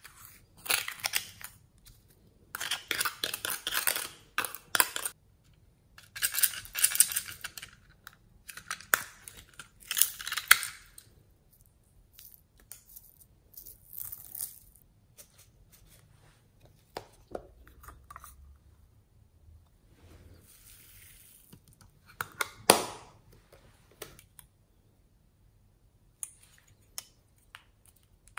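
Close-up handling sounds: a metal spoon scraping dry powder out of a plastic measuring scoop, in several gritty scrapes of a second or two each. A single sharp knock comes about two-thirds of the way in, then light clicks of small plastic toys being handled.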